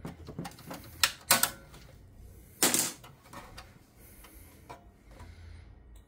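Hands handling power-supply cables and plastic connectors inside a small PC case: scattered clicks and rustles, with three sharper clicks in the first three seconds.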